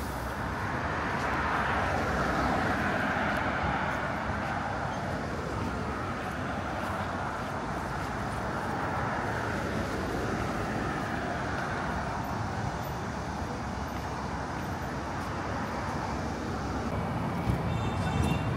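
City street traffic: a steady wash of cars passing, swelling louder as a vehicle goes by about two to four seconds in. Near the end a brief high-pitched tone and a sharp knock sound over the traffic.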